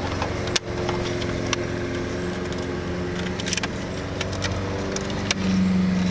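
Nissan 240SX's SR20DET engine running with a steady hum, with scattered light clicks and clanks. About five seconds in the hum grows louder.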